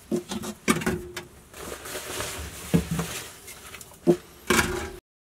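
Aluminium beer cans knocking and clinking against one another and the locker's edge as they are stacked into an under-floor storage compartment, about half a dozen separate knocks with softer rustling between them. The sound cuts off abruptly near the end.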